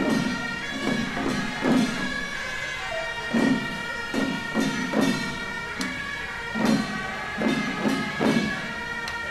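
Traditional temple-procession music: shrill reed horns holding steady notes over irregularly spaced drum beats.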